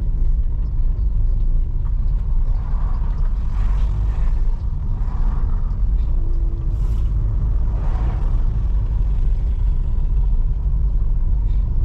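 Steady low rumble of a moving vehicle's road and engine noise.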